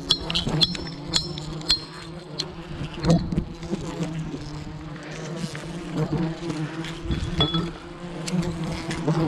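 Swarm of giant honeybees buzzing steadily around their nest, with scattered sharp clicks and knocks over the buzz.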